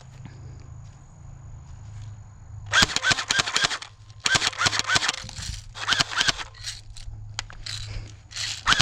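Airsoft gun firing in rapid bursts, about ten shots a second, several short strings of sharp cracks that start a few seconds in.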